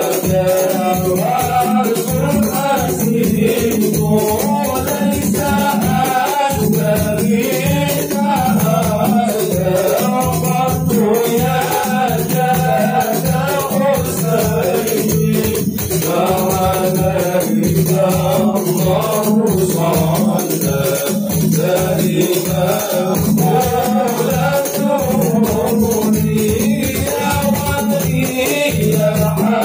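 Men singing an Arabic sholawat in praise of the Prophet in unison through a microphone PA, as at a maulid, over a steady rhythmic percussion.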